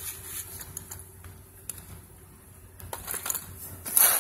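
Electric RC truck on a concrete floor: scattered clicks and rattles from the truck and its drivetrain over a faint steady whine, getting busier about three seconds in, with a louder burst of rattle about four seconds in.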